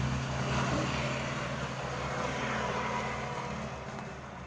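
A motor vehicle's engine running with a steady low hum, fading slowly.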